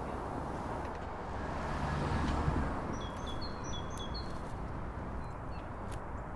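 A small bird chirping several short, high notes in a quick cluster about halfway through, over a steady low outdoor background noise.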